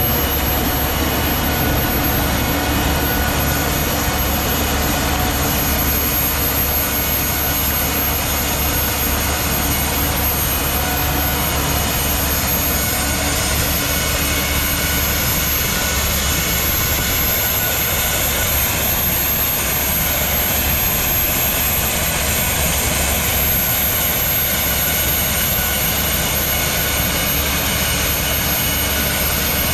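Rover 1S60 60 hp gas turbine running steadily under load while the tractor pulls a rototiller, a continuous jet-like rush with a steady high whine on top.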